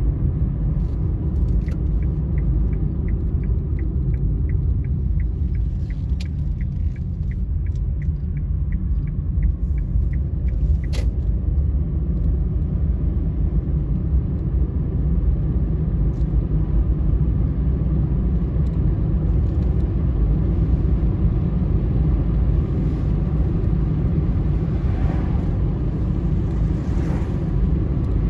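Steady low rumble of road and engine noise heard inside a moving car's cabin. In the first third a run of quick, evenly spaced ticks, about two a second, goes on for some eight seconds and ends with a single sharper click.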